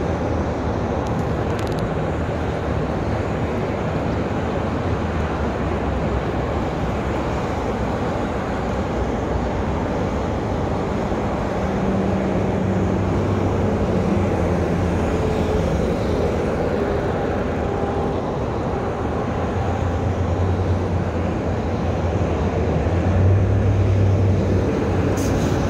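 Steady rumble and hiss of road traffic passing close by, swelling louder a couple of times as heavier vehicles go past.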